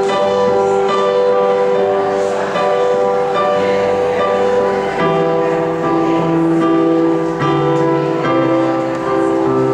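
Live band playing an instrumental introduction without vocals, led by held keyboard chords that change every second or two.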